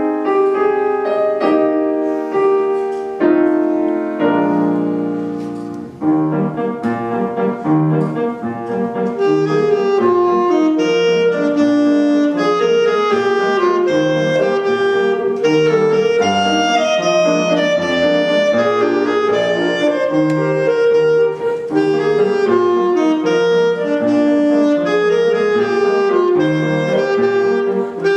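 Piano playing a few chords as an introduction, then a solo melody instrument comes in about six seconds in and carries a lively tune over piano accompaniment.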